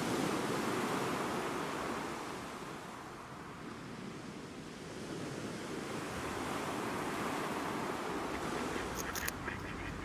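Sea waves washing in, swelling and ebbing twice, with a few short sharp clicks near the end.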